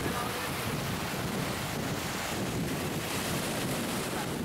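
Small surf breaking and washing up a sandy beach, with wind buffeting the microphone, a steady rushing noise.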